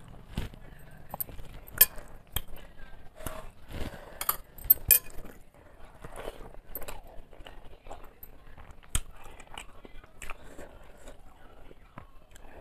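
Close-up eating by hand: wet chewing and lip-smacking over a mouthful of rice and fish curry, with many sharp irregular mouth clicks and a few light clinks against a steel plate.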